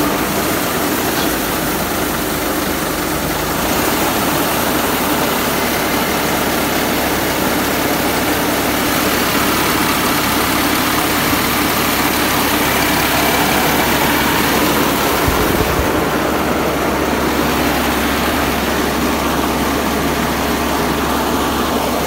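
Tracked rice combine harvester running steadily at close range: a constant loud drone of its engine and threshing and unloading machinery.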